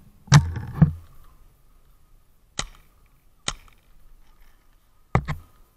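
Paintball markers firing: about six sharp, separate pops spaced irregularly, the two in the first second loudest, and a quick double pop near the end.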